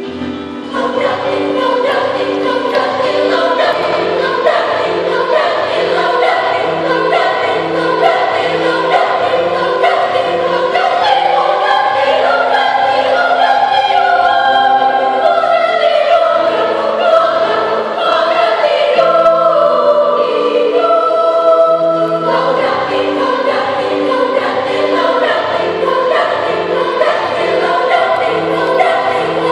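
Children's choir singing a hymn over a keyboard accompaniment; the voices come in about a second in and carry on steadily.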